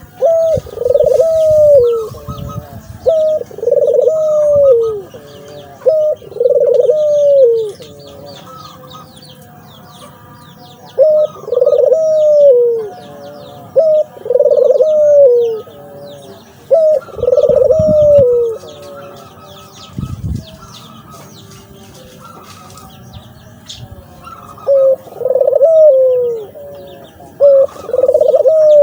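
Puter (Barbary dove) cooing: a series of low coos about a second each, rising then falling, in bouts separated by pauses. Faint high chirps of small birds sound underneath.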